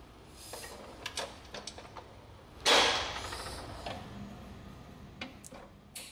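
Drawer-locking mechanism of a stainless and aluminium welding table worked by hand: a control handle turns a shaft whose cams and pins engage the drawer catches. It makes a series of metal clicks and knocks, with one louder clatter a little under three seconds in that dies away over about a second.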